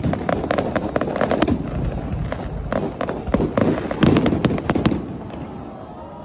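Aerial fireworks going off: a rapid string of bangs and crackles for about five seconds, then fading away.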